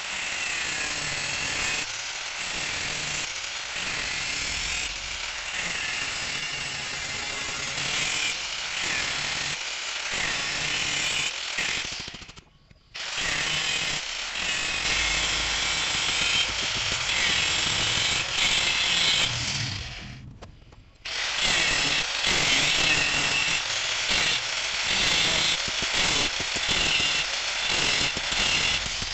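Angle grinder with a thin cut-off disc cutting into the steel casing of a spin-on air-oil filter, a steady high grinding noise. It breaks off briefly twice, about a third and two thirds of the way through, and stops just before the end.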